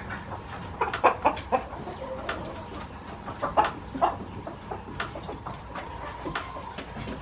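Chickens clucking, with scattered short calls coming thickest about a second in and again around three and a half to four seconds in.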